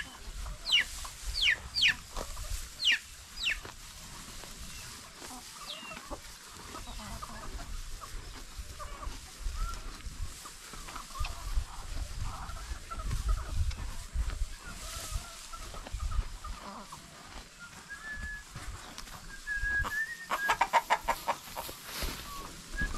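Chickens clucking. Several sharp calls fall in pitch in the first few seconds, and a quick run of clucks comes near the end.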